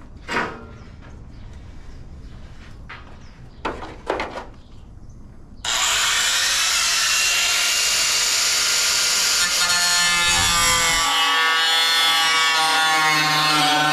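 A couple of light knocks, then about halfway in a handheld power tool starts abruptly and runs steadily, cutting and grinding into the fiberglass of a beach-buggy body with a loud, hissy whine.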